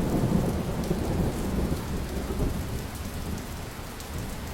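Rain falling with a low, rolling rumble of thunder, easing slightly toward the end.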